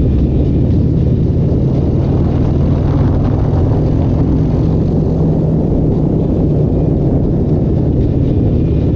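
A loud engine running steadily at an even pitch, with no revving.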